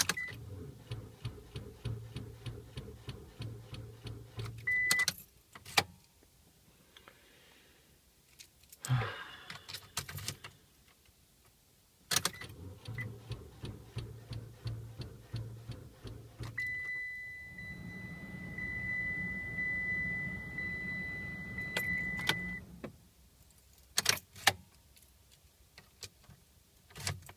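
A car failing to start: two bursts of rapid, even clicking over a low hum, several seconds each, with a few sharp knocks between them. A steady high-pitched warning beep sounds for several seconds late on.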